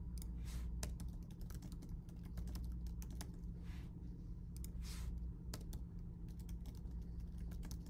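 Computer keyboard typing: irregular runs of quick keystrokes as code is entered, with short pauses between bursts.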